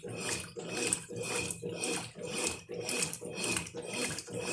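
Brastemp Ative 11 kg top-loading washing machine agitating a full load on its turbo setting: water and clothes sloshing in rhythmic swishes about twice a second as the agitator turns back and forth.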